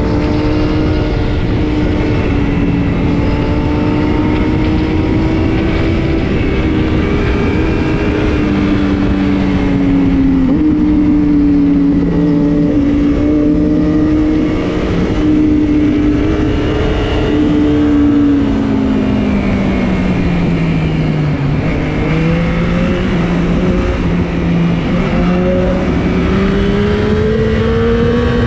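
Sport motorcycle engines running at a steady cruise over a constant rush of noise. Their pitch drifts gently, drops about two-thirds of the way through as they slow, then climbs again towards the end as they speed up.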